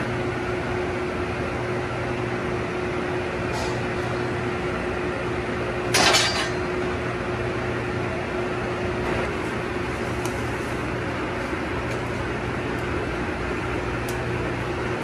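A machine running with a steady hum and a faint held tone; a short noisy burst about six seconds in.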